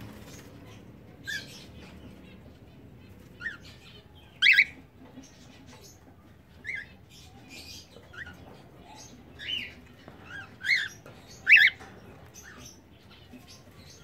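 Cockatiels giving short chirping calls, one every second or so, the loudest about four and a half seconds in and again near eleven seconds.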